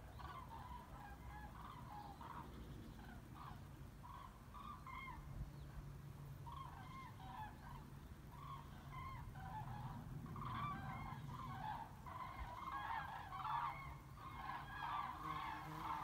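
A large flock of common cranes calling in flight overhead: many overlapping trumpeting calls, which grow denser and louder about ten seconds in.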